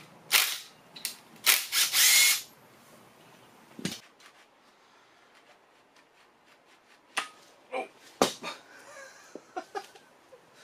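Cordless impact driver running in three short bursts in the first two and a half seconds, backing bolts out of the engine. Scattered metallic clicks and knocks follow later, as parts and tools are handled.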